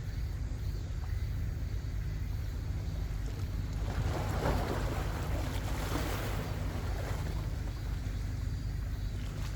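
Wind rumbling on the microphone over the sea, with a wave surging and washing for a few seconds about four seconds in.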